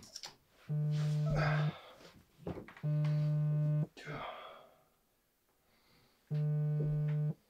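Mobile phone vibrating: three identical steady buzzes about a second long, with longer gaps between them, and heavy ragged breathing in between.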